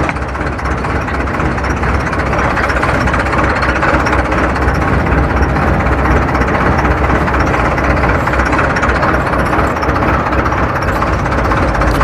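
Diesel engine idling steadily.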